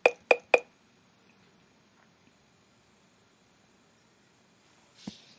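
A steady, very high-pitched electronic tone that creeps slightly upward in pitch, with three quick clicks right at the start.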